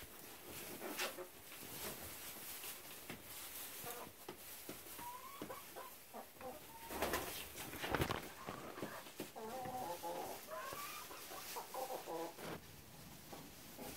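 Hens clucking and giving short calls. A few sharp thumps and rustles come in between, the loudest about halfway through.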